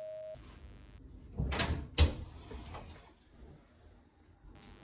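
A doorbell's steady tone cuts off just after the start, then a door is opened: some rustling movement and a sharp latch click about two seconds in.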